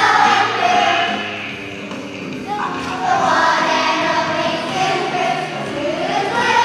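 Children's choir singing a song with musical accompaniment.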